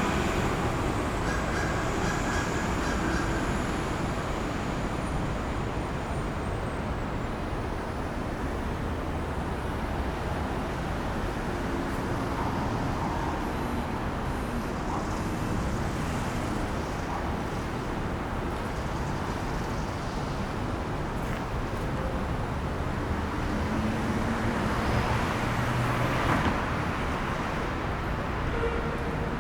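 Downtown street ambience: a steady wash of traffic running past, with a louder swell of a passing vehicle near the end.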